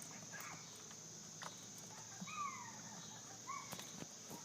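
Steady high insect chirring with a bird giving short down-slurred calls several times from about two seconds in, and a few faint clicks.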